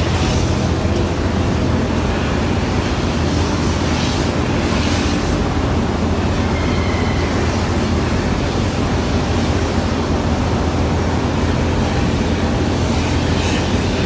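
Steady loud industrial roar of a ferronickel smelter's furnace hall during tapping, a constant low hum under an even rushing noise.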